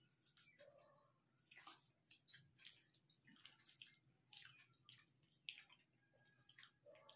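Faint wet chewing and mouth clicks from people eating rice and fish curry by hand, coming as short, irregular smacks.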